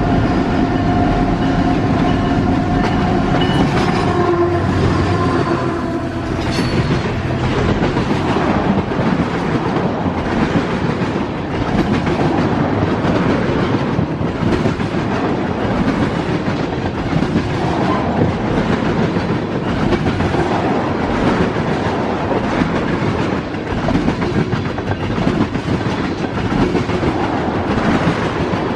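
Train passing close by: a continuous loud rumble with wheels clicking over rail joints. A horn chord sounds over it for about the first six seconds, then stops.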